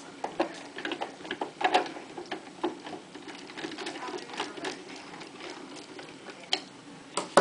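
Screwdriver turning a small screw into the plastic end cover of a Toyota sewing machine: irregular small clicks and scrapes of metal on screw and plastic.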